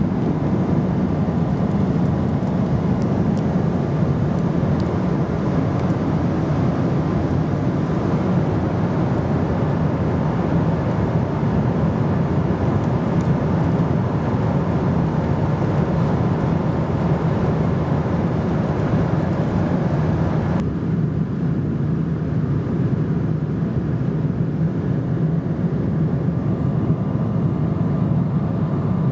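Steady cabin noise of a Boeing 777-200ER airliner in flight: a constant low rush of airflow and engine noise. About two-thirds of the way through, the higher hiss drops away suddenly while the low rush carries on.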